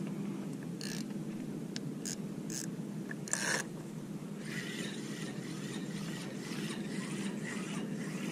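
Steady low rumble of wind and water around a fishing kayak, with a few sharp clicks and knocks from gear on board between about one and three and a half seconds in. A fluttering hiss of water against the hull follows.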